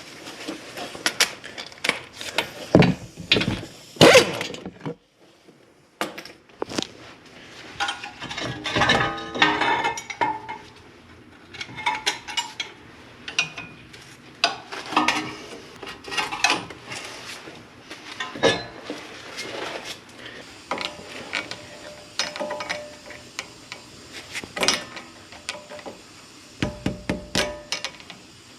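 Hand ratchet clicking as the caliper bracket bolts are loosened and spun out, mixed with knocks and clinks of tools and metal parts; near the end a run of quick, even ratchet clicks.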